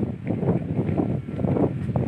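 Wind buffeting the microphone: a loud, gusting low rumble.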